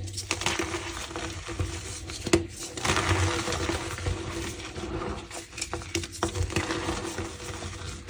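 Block of reformed gym chalk being crushed by hand, crumbling with irregular crunching and crackling and a few sharp clicks as the packed chalk gives way.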